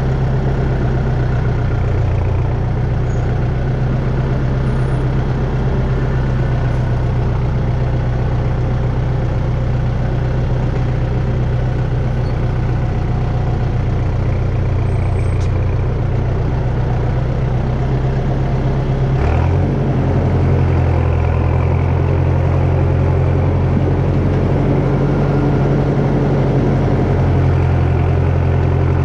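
A heavy engine running steadily at an even low pitch. About nineteen seconds in there is a click, after which the low hum shifts slightly.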